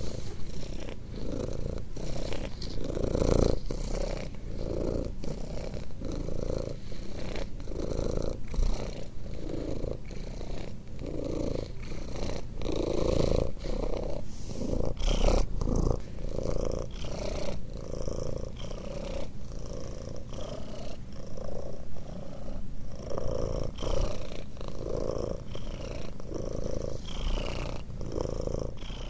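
Ginger-and-white domestic cat purring steadily up close, the purr pulsing evenly about twice a second.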